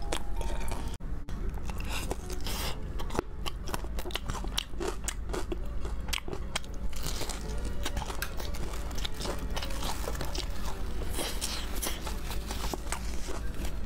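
Close-up biting and chewing of crispy sauce-glazed fried chicken: a dense, irregular run of crunches as the coating breaks between the teeth.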